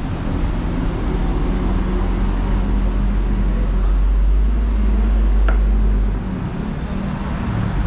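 Street traffic with a vehicle's low engine rumble close by, which drops away about six seconds in.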